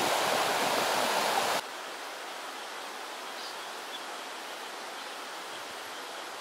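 Rushing flood water of a swollen stream, a steady loud rush, cut off suddenly about a second and a half in; after that a much quieter steady hiss of outdoor water noise.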